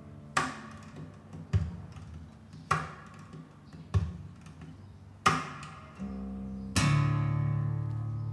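Acoustic guitar music played back over a hi-fi system with Estelon loudspeakers. Single strummed chords come about every second and a bit, each left to ring; near the end a fuller chord with a deep low note sustains.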